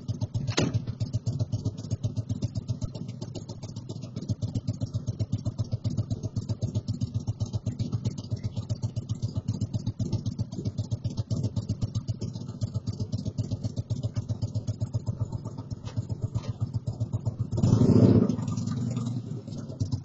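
Motorcycle engine idling with a fast, even pulsing beat, swelling briefly louder near the end.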